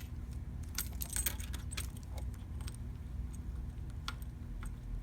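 Scattered light clicks and rattles of hands unplugging and plugging CNC motor cable connectors to swap one over to the X-axis port, over a steady low hum.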